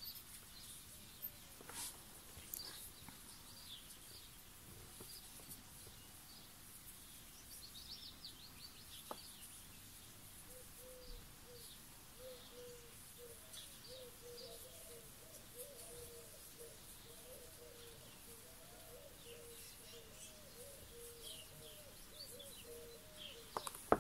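Faint chirping of small birds, with a few soft clicks. From about halfway through, a faint, low, wavering call repeats over and over.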